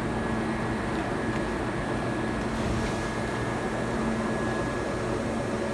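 Steady hum and whir of a stopped train's onboard equipment, its air-conditioning and auxiliary machinery, with a faint constant high tone, echoing in an underground platform.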